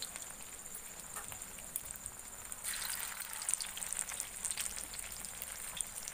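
Oil sizzling and crackling around small fish balls deep-frying in a wok. The hiss swells louder about halfway through, then eases.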